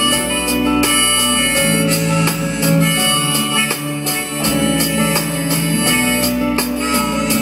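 Live folk-rock band playing an instrumental passage between sung verses: strummed acoustic guitar over a steady drum kit beat, with keyboard and electric guitar.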